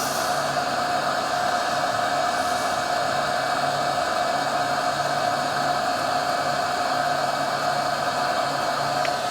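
Hot air rework station blowing steadily, with a constant whine over the airflow, as it heats the board to remove the CPU.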